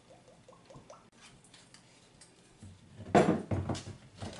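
Cooking oil glugging from a plastic bottle into a plastic bowl, a string of short rising gurgles in the first second. About three seconds in comes a louder burst of knocks and rattling as containers are handled on the kitchen counter.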